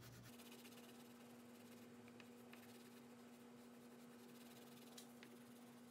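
Faint scratchy rubbing of an oil pastel stick coloring on paper, over a steady low hum.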